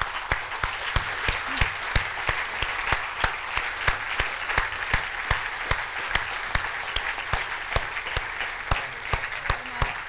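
Audience applauding steadily, with many loud single claps standing out of the even patter.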